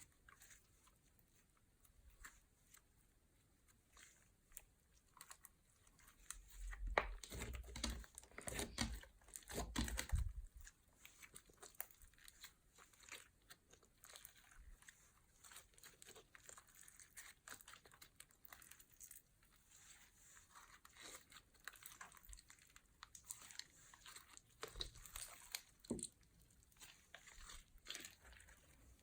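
Slime being squished and mixed inside a plastic bag, with quiet crinkling and small crackles, louder for a few seconds about seven to ten seconds in.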